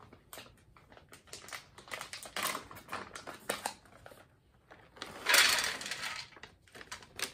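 Plastic ration pouch rustling and crinkling as it is handled and torn open, then trail mix of nuts, raisins and M&M's poured out, rattling onto a stainless steel compartment tray about five seconds in, the loudest part.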